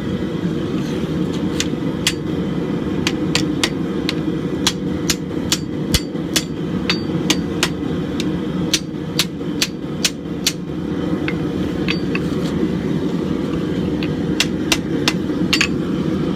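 Hand hammer striking a red-hot steel bar on an anvil, bending it around to form an axe eye. The blows are sharp and come in irregular runs of two or three a second, with short pauses between runs, over a steady low background rumble.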